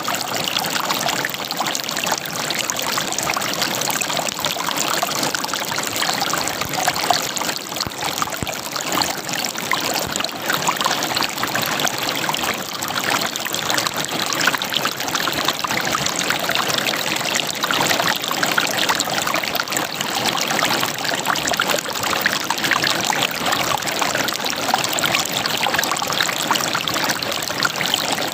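River water flowing and gurgling over rocks, a steady dense babble with fine splashing detail.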